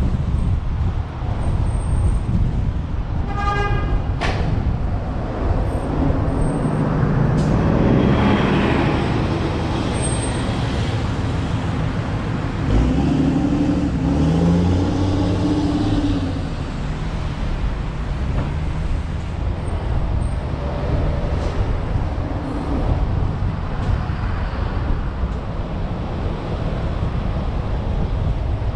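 Manhattan street traffic: steady engine and tyre noise of cars moving along the avenue. A short horn toot sounds about three seconds in, and a heavier engine rumbles past in the middle.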